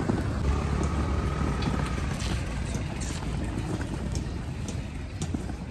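A steady low rumble of outdoor noise, with a faint thin tone lasting over a second about half a second in and scattered light ticks.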